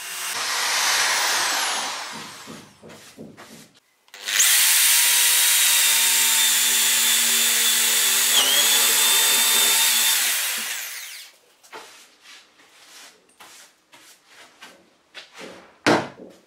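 Electric drill in a drill stand boring into the wooden edge of a workbench: a first run dies away about two seconds in, then after a short pause the drill runs steadily with a whine for about seven seconds, its pitch dipping briefly under load, before spinning down. A few light knocks and a thump near the end.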